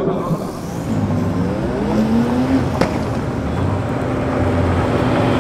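A car engine rising in pitch as it accelerates, broken by a sharp click just under three seconds in. After the click, the Nissan GT-R's twin-turbo V6 idles with a steady note.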